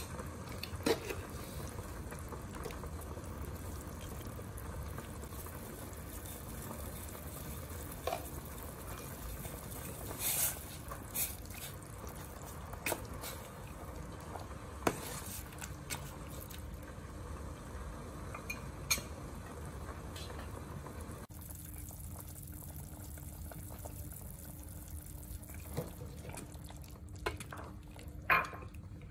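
Pot of fish soup simmering: a steady low bubbling, with a metal ladle clinking and scraping against the pot every few seconds as it is stirred.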